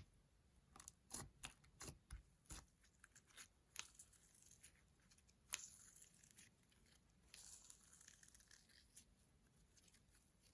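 Faint close-up handling sounds of slime and makeup being worked: a run of small sticky clicks and crackles, one sharper click about five and a half seconds in, then a soft rustling.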